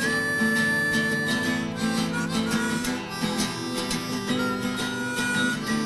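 Music: a harmonica holding and stepping between long notes over plucked and strummed acoustic guitar.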